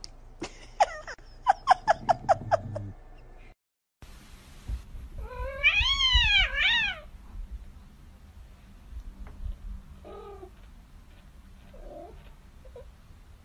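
Domestic cats crying. First comes a quick run of about eight short, sharp cries, then a brief break. After it, a loud drawn-out yowl rises and falls in pitch twice, followed by a few faint meows.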